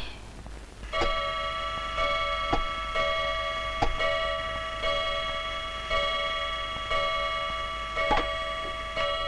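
Chiming clock striking the hour: about nine ringing strikes roughly a second apart, each tone ringing on into the next, with fainter ticks between them. The clock is striking nine o'clock.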